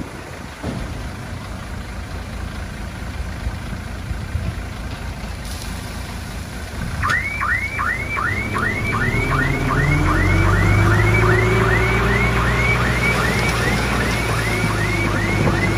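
Heavy diesel machinery running. About seven seconds in, a reversing alarm starts up: a quick rising chirp repeated about three times a second. Under the alarm the engine revs up.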